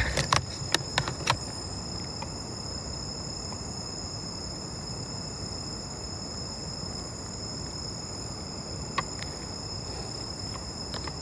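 Insects droning steadily at a high pitch over low background hiss, with a few short clicks in the first second or so and one more about nine seconds in.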